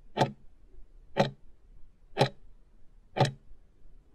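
Clock-like tick sound effect of a countdown timer, one sharp tick about every second, marking the seconds left to answer.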